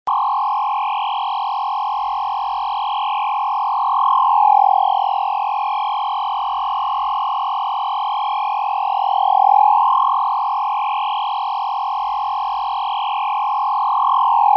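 Synthesized sci-fi laser-beam sound effect: a steady electronic hum with slow swooping overtones. It dips and swells in pitch twice, at about four and a half and nine and a half seconds in, then cuts off suddenly.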